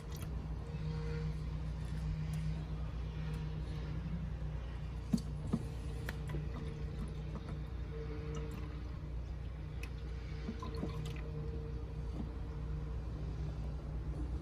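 Steady low background hum, with two small clicks about five seconds in from handling the large rubber coolant hose at the outlet of a plastic coolant expansion tank.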